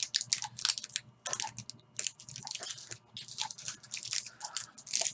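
Small individually wrapped candy being unwrapped by hand, its wrapper crinkling in irregular quick crackles.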